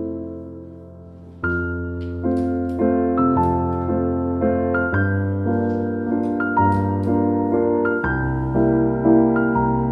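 Slow instrumental background music: notes struck and decaying one after another over held low bass notes. It fades out over about the first second and a half before a new phrase comes in.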